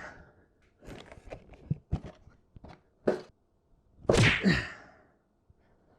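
Several sharp knocks and thuds from a small cardboard box being handled and knocked about without hands, then a loud strained grunt about four seconds in.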